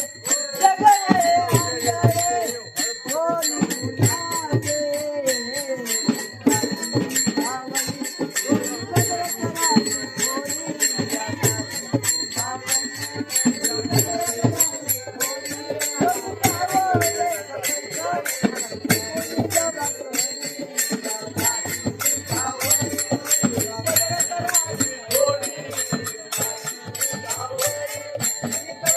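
Folk music: a wavering melody over a steady, fast beat of jingling, rattling percussion.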